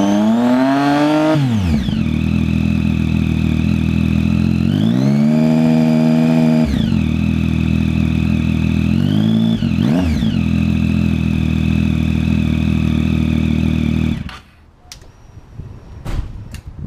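2013 Triumph Street Triple's 675 cc inline-three engine, loud through an aftermarket Coffman shorty exhaust, revved by hand at standstill: a rev falling back to idle, a longer rev held for about two seconds, a quick blip, then idling until the engine cuts off near the end. A few light clicks follow.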